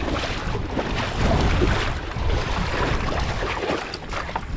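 Water swishing and splashing as a person wades through floodwater, pushing a plastic jerrycan float that leaves a wake, with wind buffeting the microphone.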